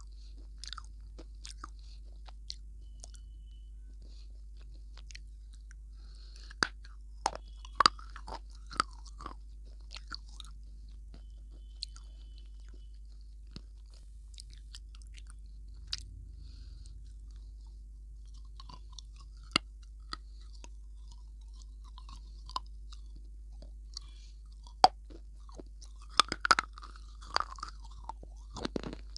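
Close-miked biting and chewing of a dry, crumbly brown chunk: scattered sharp crunches between quieter chewing, with a burst of louder crunches near the end, over a steady low hum.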